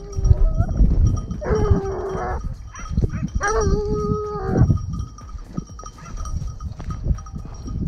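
Hunting dogs baying in long steady-pitched calls, two of them a little apart near the middle, with a faint steady bell-like ringing under them and wind rumbling on the microphone.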